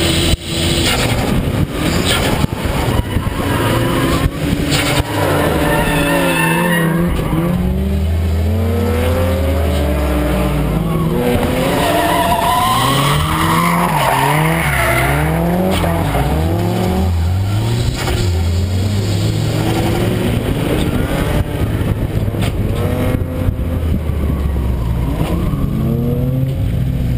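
Car engine revving up and falling back again and again under hard throttle, with tyres skidding and squealing as the car drifts. A few sharp knocks come in the first few seconds.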